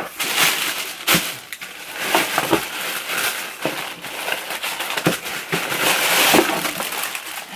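Tissue paper rustling and crinkling as it is handled and pulled back inside a cardboard box, with many sharp crackles and a few knocks from the cardboard.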